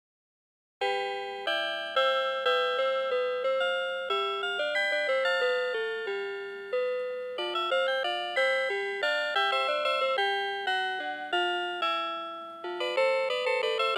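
Citizen CITE QHM3313-2 melody alarm clock playing one of its built-in electronic tunes, starting about a second in. A quick melody of bell-like notes, each struck and fading.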